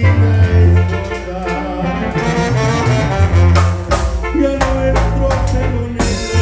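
Band music with saxophone and brass horns playing sustained melody lines over a heavy bass and drums, with a sharp hit about six seconds in.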